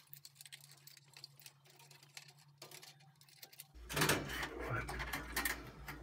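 Small clicks and rustling of wires and plastic connectors being handled inside a boiler's metal control box: faint at first, then louder and busier from about four seconds in.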